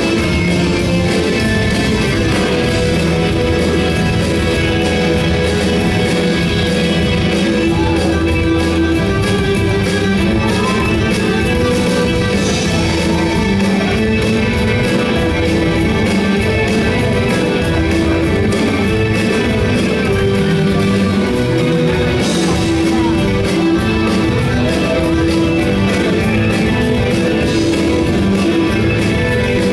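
Live rock band playing loud and steady, with electric guitars over a drum kit.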